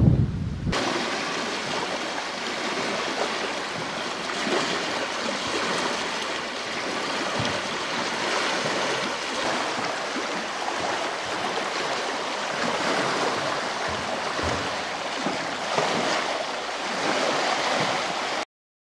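Small waves lapping and splashing on the stone-pitched shore of a reservoir, a steady wash of water noise that starts just under a second in and cuts off suddenly near the end.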